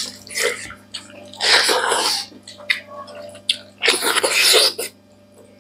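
Wet mouth sounds of people eating by hand: two loud, noisy slurps about a second long, one near a second and a half in and one around four seconds, with small chewing clicks between.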